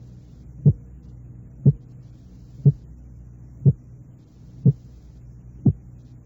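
A single, unsplit heart-sound-like beat, a training sound 3 hundredths of a second long, repeated about once a second, six times, over a steady low hum. It is the baseline single sound against which split heart sounds are compared.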